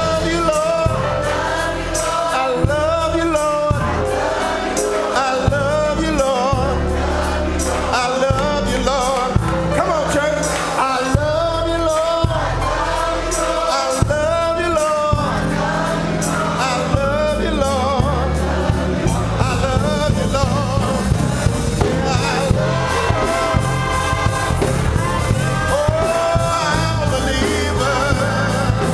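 Gospel choir singing with a live band: voices over bass and drums with a steady beat.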